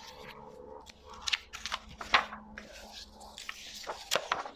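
Pages of a large photography book being turned by hand: paper rustling and flapping in a string of crisp snaps and crackles, the sharpest about two seconds in.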